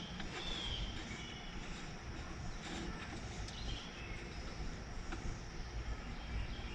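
Steady outdoor background noise with a low rumble and a few faint, short, high chirps.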